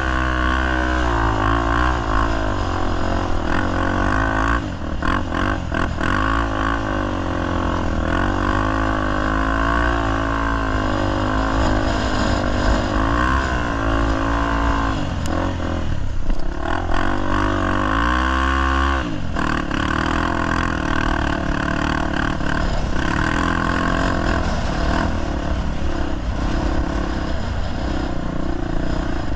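Honda Tornado 250 single-cylinder four-stroke motorcycle engine running hard off-road, its pitch rising and falling again and again as the throttle is worked.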